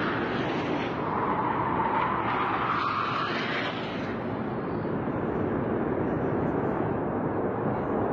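Military jet flying low overhead, its engine making a loud, steady roar. A whine in the roar rises slightly in pitch over the first few seconds, then fades into a broad rumble.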